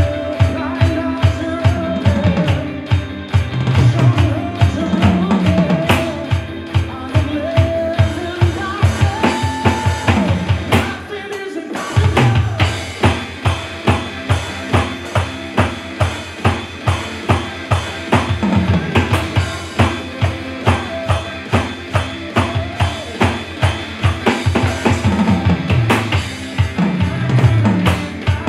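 Electronic drum kit played along with a worship pop-rock backing track: a steady kick-drum beat with snare and cymbal strokes under sustained keyboard chords. The music drops out for a moment about eleven seconds in, then the groove resumes.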